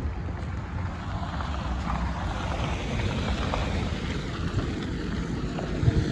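Steady low rumble of road vehicles, with wind noise on the microphone.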